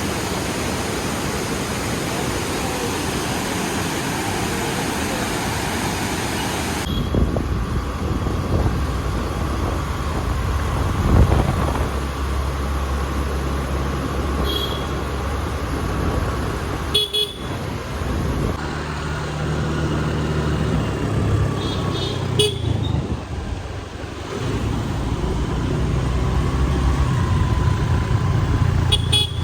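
A waterfall's steady rush, which changes abruptly about seven seconds in to road-vehicle engine drone with several short horn toots.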